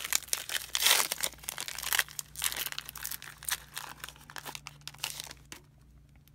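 Foil wrapper of a Pokémon trading card booster pack crinkling and tearing as it is pulled open by hand, in dense crackly bursts that die away near the end.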